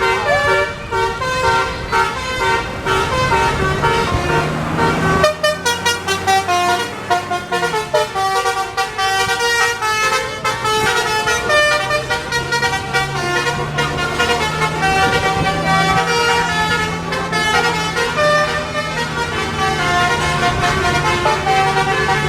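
Basuri multi-trumpet telolet air horn on a Tunggal Jaya bus playing a melody, its notes stepping from pitch to pitch. The bus's engine runs underneath.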